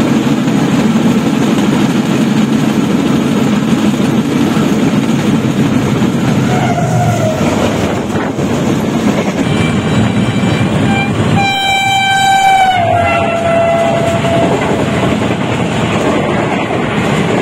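Passenger train passing at speed on the adjacent track, a steady loud rumble of wheels and coaches. A brief horn note comes about seven seconds in, and a longer train horn blast about twelve seconds in drops in pitch as it ends.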